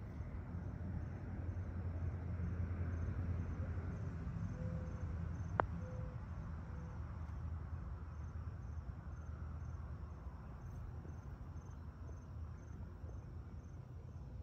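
Insects chirping faintly in an even, repeating rhythm over a low outdoor rumble. A single sharp click about five and a half seconds in, a putter striking a golf ball.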